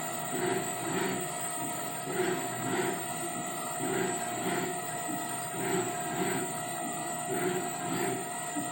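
DIY CNC mill running a G-code program: its servo motors drive the axes back and forth in a repeating rhythm of paired surges about every one and a half to two seconds, over the steady whine of the spindle turning at about 1,000 RPM.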